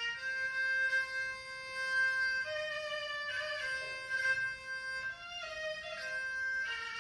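A solo bowed fiddle plays a slow Thai classical melody in long held notes, moving to a new pitch every second or two.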